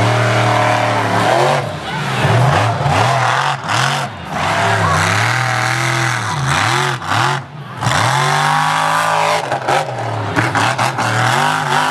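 Monster truck engine revving hard over and over, its pitch swinging up and down in quick repeated swells, with a couple of brief lulls.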